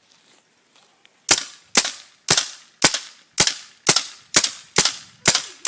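VL Orion paintball gun firing a steady string of shots, about two a second, starting a little over a second in.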